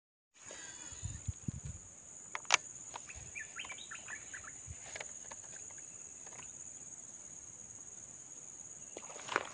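Insects chirping in a steady, high-pitched drone, with a bird giving a short run of chirps about three to four seconds in. A few sharp clicks and low handling knocks come over it, the loudest click about two and a half seconds in and another just before the end.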